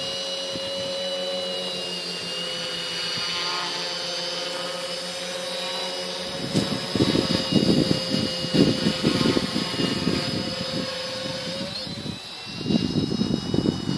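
Quadcopter's electric motors and propellers hovering with a steady high whine. The pitch shifts slightly near the end. From about halfway, rough rumbling noise on the microphone comes and goes over the whine.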